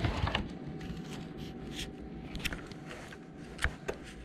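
Handling noise from a camera held right against the hands and paper: scattered taps, scrapes and rustles, with a low rumble underneath.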